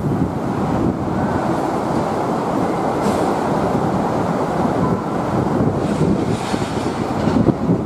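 Wind buffeting the microphone: a steady low rush that hides any quieter harbour sound.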